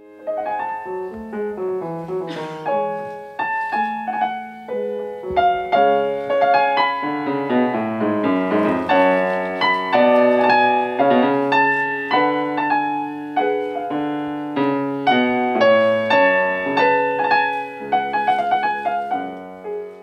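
Grand piano played solo: a classical piece in a steady, flowing stream of notes.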